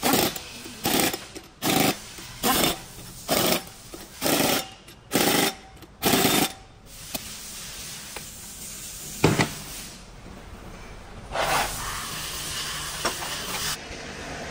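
Pneumatic impact wrench hammering on the flywheel bolts of a Komatsu SA6D125 diesel engine in about eight short bursts, roughly one a second, stopping after six or seven seconds. A single sharp knock follows about nine seconds in.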